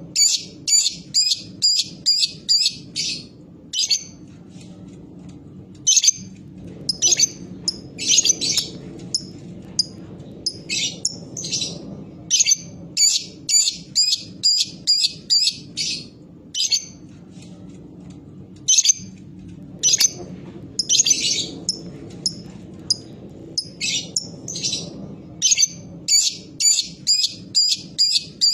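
Lovebird calling in runs of sharp, high chirps, several a second, in bursts of one to three seconds with short pauses between.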